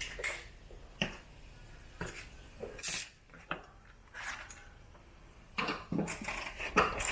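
Irregular metallic clinks and knocks of hand tools and suspension hardware being handled, about ten separate strikes.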